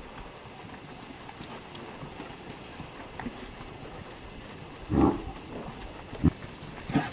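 Feeder calves' hooves shuffling and stepping in a pen, with a few thumps; the loudest comes about five seconds in, followed by two sharper knocks.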